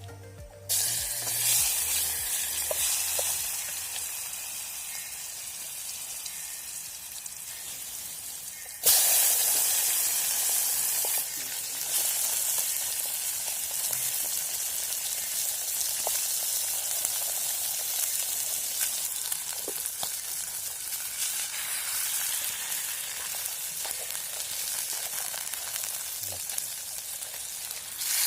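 Fish frying in hot oil: a steady sizzle that gets suddenly louder about nine seconds in.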